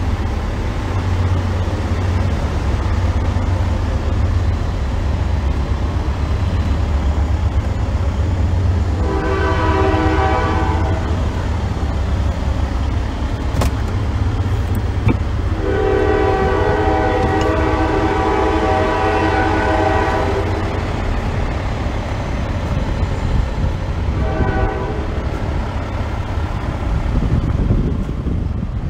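Train horn sounding a long blast, a longer one, a short one, then another starting near the end, the pattern used at a grade crossing, over a steady low rumble.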